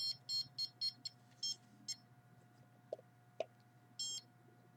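Handheld RF detector beeping in short, irregular high-pitched bursts: a quick cluster in the first two seconds, then one longer beep at about four seconds. The user takes the beeping for pulsed microwave signals.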